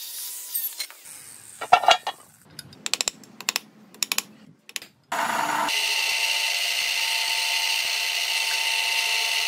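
Tools and parts being handled with scattered knocks and clicks, then about five seconds in a power tool starts and runs steadily at high speed with a constant whine.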